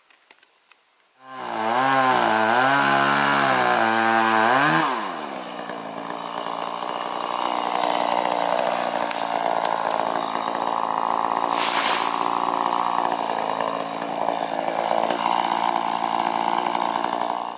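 Gas chainsaw running: its engine note wavers up and down for a few seconds after starting, then settles to a steady note until it cuts off abruptly at the end.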